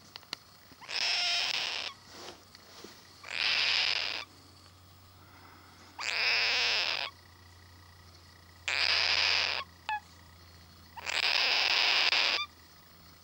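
Young cockatoo giving five harsh, rasping calls, each about a second long and coming roughly every two and a half seconds.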